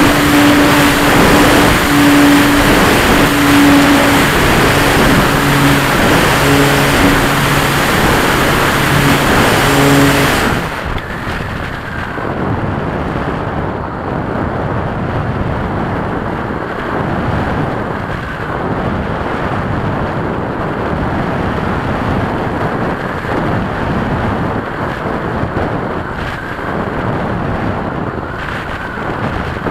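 RC model aeroplane in flight heard from its wing-mounted camera: the motor and propeller run hard with a steady droning tone over loud rushing air, then about ten seconds in the throttle is cut and only the airflow rushing over the microphone remains.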